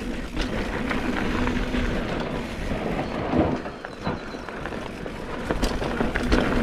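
Mountain bike rolling fast down a dirt singletrack: tyres rushing over loose dirt and gravel, with a few knocks and rattles from the bike over rough ground, mixed with wind rush on the microphone.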